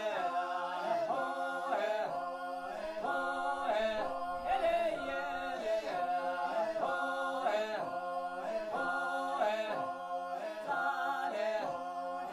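Background music of unaccompanied chant-like singing, short phrases repeating at a steady pace.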